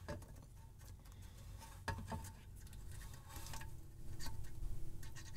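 Soldapult spring-loaded desoldering pump being cocked and worked on a solder joint: a few light clicks, then faint rapid tapping in the last couple of seconds.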